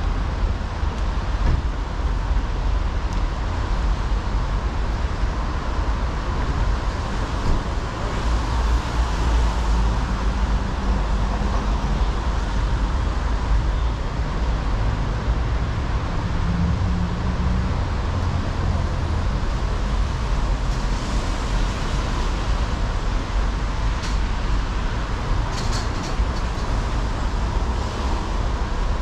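Steady road traffic noise, with a vehicle engine's low hum standing out through the middle.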